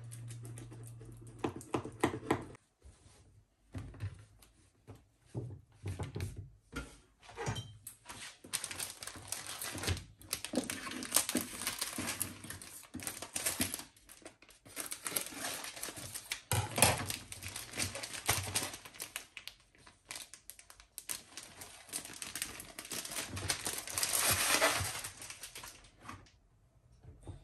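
Plastic wrapper of a spring roll pastry packet crinkling and crackling as it is cut open with scissors and the pastry sheets are pulled out, loudest near the end. Scattered clicks and taps come first.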